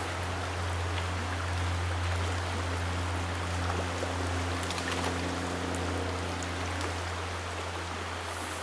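Shallow rocky trout stream running over a riffle: a steady rushing hiss of moving water, with a steady low hum underneath.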